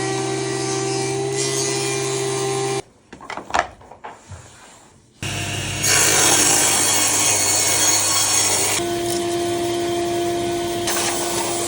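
Woodworking power tools working wood, in separate clips. A steady motor hum cuts off after about three seconds, and a few light knocks follow. Then another machine starts up with a loud hiss of cutting or sanding, settling into a steady hum for the last few seconds.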